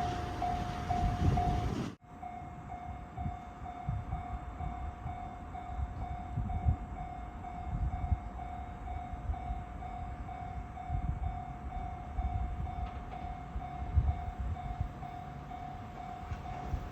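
Japanese railway level-crossing warning bell ringing in an even, rapid repeat. For the first two seconds a train's low rumble runs under it. After an abrupt cut the bell rings on with only scattered low thumps beneath it.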